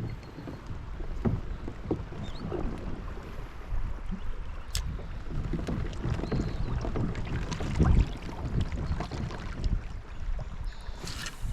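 Hobie Outback pedal kayak on a river: water moving along the hull with a low rumble and scattered knocks and bumps, the loudest thump about eight seconds in.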